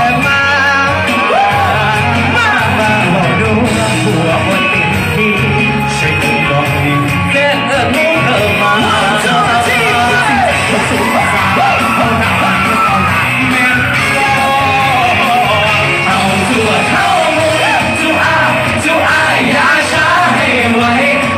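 Loud live band music with a group of male singers singing together into microphones, with fans yelling and screaming along in a large hall.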